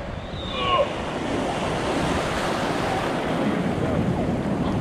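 Ocean surf washing up the beach, a rushing wash that swells through the middle, with wind on the microphone. A child's voice is heard briefly near the start.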